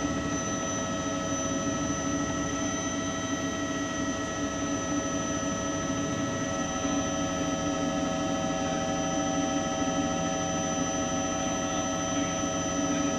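Steady mechanical hum: several held tones over an even rushing noise, with one more tone joining about seven seconds in.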